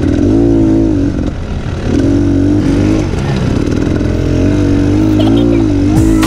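Dirt bike engine heard from the rider's own bike on a trail ride, its pitch rising and falling as the throttle is opened and eased off several times.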